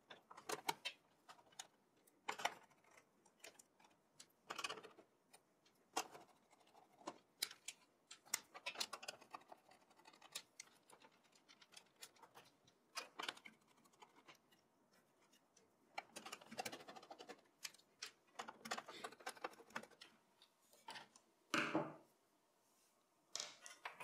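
Faint, scattered clicks and small metallic rattles of a screwdriver backing out motherboard screws and of parts being handled inside a small-form-factor desktop PC case, busiest a few seconds before the end.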